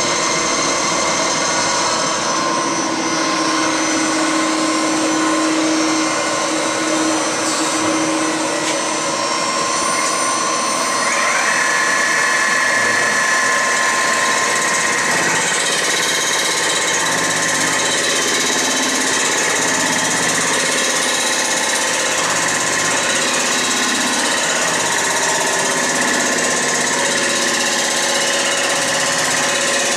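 Milling machine running its large cutter head across the deck of a cast-iron Ford Model A engine block, a decking pass to flatten the distorted surface. It makes a steady machine whine, with one tone that rises and then holds higher about eleven seconds in.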